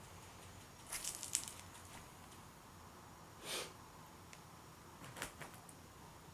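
Faint clicks and rustles from handling a moving handheld camera and shuffling about, with a cluster of sharp clicks about a second in and a few more after five seconds. A short hissing puff comes about three and a half seconds in.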